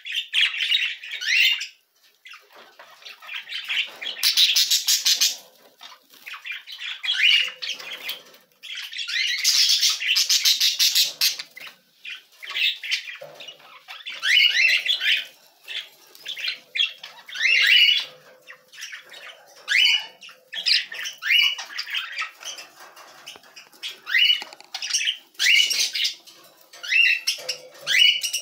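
Budgerigars chattering and squawking: an almost unbroken run of short chirps and warbles, with harsher, buzzy squawks about four and ten seconds in.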